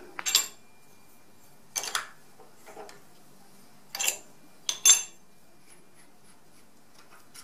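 Steel tools and parts clinking on an ER collet nut and the milling-machine table as the collet is loosened and the milled bar taken out: a handful of separate metallic clinks and knocks a second or two apart, two close together a little past the middle being the loudest.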